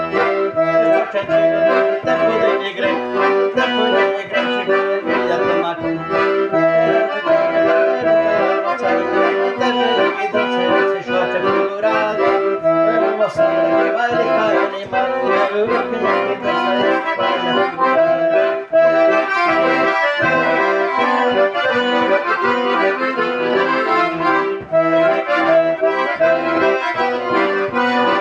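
Two accordions playing an instrumental passage together, full chords over a steady pulsing bass.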